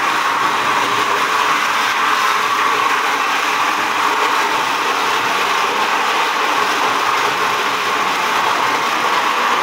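Single-disc rotary floor machine running steadily, its spinning sanding pad grinding over the bare floor in a loud, even whir.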